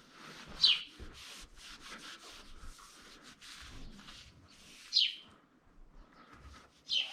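Quick repeated rubbing strokes of the dairy barn's milk pipeline being scrubbed clean by hand. A bird chirps three times over it, each chirp a short call falling in pitch.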